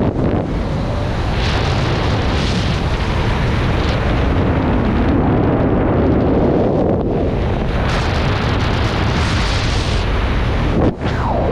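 Rushing air buffeting the microphone during a parachute jump: a loud, steady roar with one brief dip near the end.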